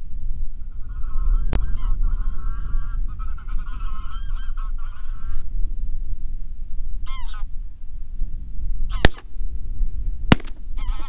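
Geese honking, a long run of calls in the first few seconds and a few more later. Then two shots from a 12-gauge Browning A5 semi-automatic shotgun, about a second apart, the first the loudest sound here.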